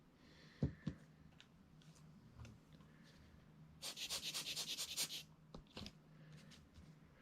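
Handling of a camera lens: two light knocks near the start, then about a second of quick rubbing strokes, as of a cloth wiped over it, past the middle.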